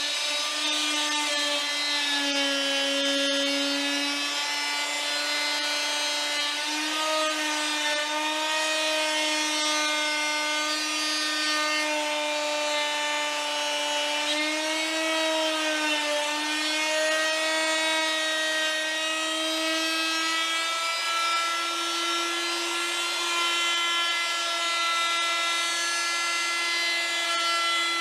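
Handheld router running steadily at full speed, its bit cutting a spline slot into a wooden chair leg on a second pass. The whine wavers slightly in pitch now and then as the bit takes load.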